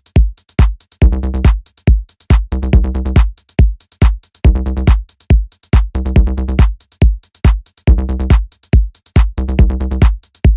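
Electronic background music with a drum-machine beat and a repeating pattern of sustained chords.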